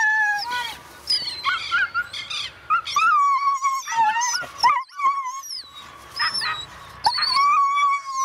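Several greyhounds whining and yelping in high, drawn-out cries that overlap one another, held on leads and eager to be let loose after a hare.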